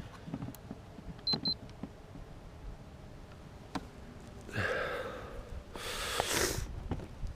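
Two short, high electronic beeps from boat electronics about a second in, then two bursts of rustling noise near the end, the second the loudest.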